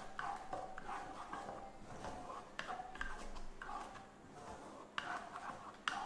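Wooden spatula stirring a thick cream sauce in a nonstick pan: irregular scraping strokes against the pan, with a short lull a little past the middle.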